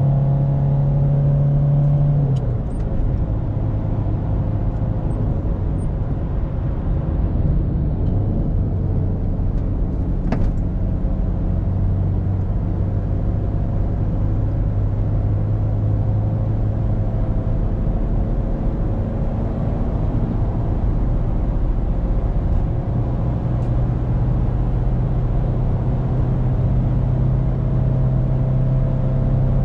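Cabin sound of the Citroën Berlingo's 1.9-litre four-cylinder diesel engine pulling on the motorway, with tyre and wind noise. The engine note drops about two seconds in, then climbs slowly through the second half as the van gathers speed. There is a single sharp click near the middle.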